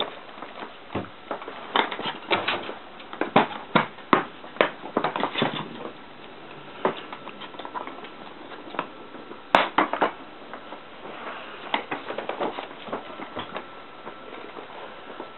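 Irregular taps and clicks of a small dog playing with tennis balls: claws skittering on a wooden floor and rug and balls bouncing, in clusters with short lulls, and one sharp click about two-thirds of the way through.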